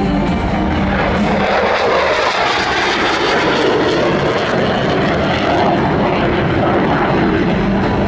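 Loud jet noise of a single-engine F-16 fighter in a display pass, swelling over the first two seconds and then holding steady.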